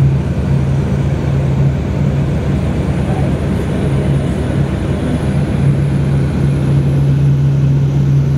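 Light aircraft's engine and propeller running steadily in flight, heard from inside the cockpit as a loud, even drone over rushing air noise.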